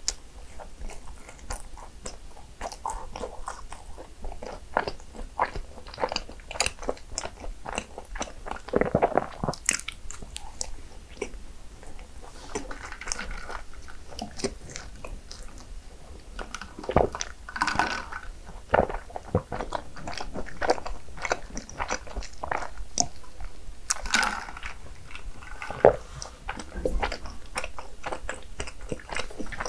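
A person biting and chewing cinnamon rolls: many small clicks and crunches of mouth sounds throughout, a little louder in a few spots.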